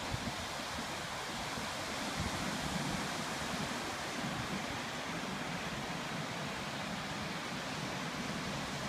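Ocean surf breaking and washing up a sandy beach: a steady rush of noise, with a little wind buffeting the microphone.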